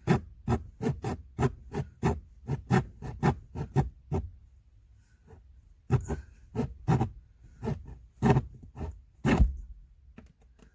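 Hacksaw cutting through the hard plastic of a truck's HVAC blower housing in quick back-and-forth strokes, about three a second. It stops for a couple of seconds about four seconds in, then resumes.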